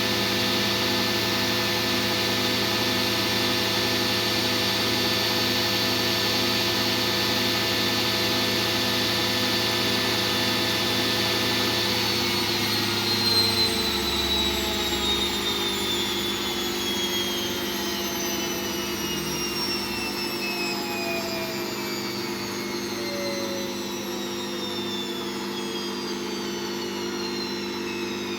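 Candy washing machine spinning at high speed with a steady whine. About twelve seconds in, the drive cuts out and the drum coasts down, its whine falling steadily in pitch.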